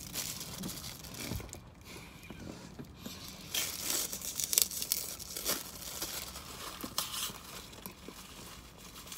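Thin plastic wrapper of a small packet crinkling and tearing as it is pulled open by hand, loudest in the middle, with a last crinkle near the end.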